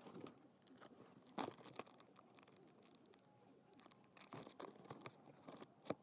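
Faint rustling and crinkling of small items being handled, with scattered sharp clicks; the loudest come about one and a half seconds in and just before the end.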